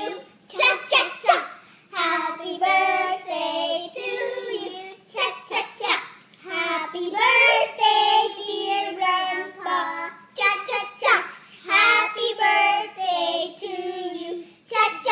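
Three young children singing a birthday song together, unaccompanied.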